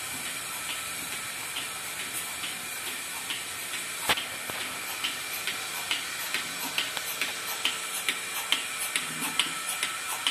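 Bucket milking machine running: a steady hiss with rhythmic clicking about twice a second, more distinct in the second half, and one sharper click about four seconds in.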